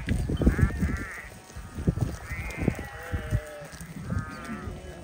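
Sheep in a grazing flock bleating, about four separate bleats at different pitches, one of them lower.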